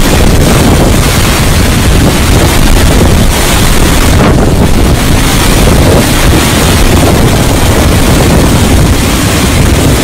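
Strong blizzard wind blasting the microphone: loud, constant, rumbling wind noise that never lets up.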